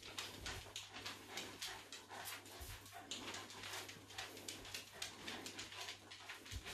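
A small terrier's claws clicking on a tiled floor as it moves about, heard as faint, quick, irregular ticking.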